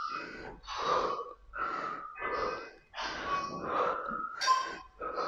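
A woman breathing hard from exertion: quick, forceful breaths in a steady rhythm, a little over one a second.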